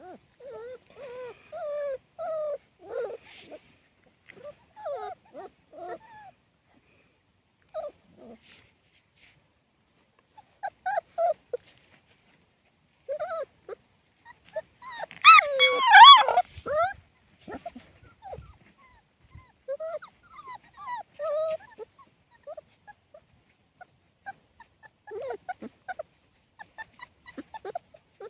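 Puppies whimpering in short, high-pitched calls that come in scattered bunches with brief pauses between, with a louder burst of cries about halfway through.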